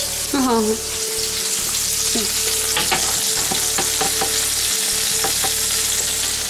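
Bacon-wrapped duck pieces sizzling in hot bacon fat on a metal sheet pan, with repeated clicks of metal tongs against the pan as they are turned. There is a steady hum underneath and a short falling squeal about half a second in.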